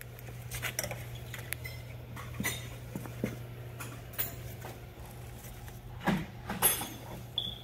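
Scattered metal clinks and knocks, about half a dozen, from handling and shifting a heavy Flygt 3152 submersible pump housing, over a steady low hum.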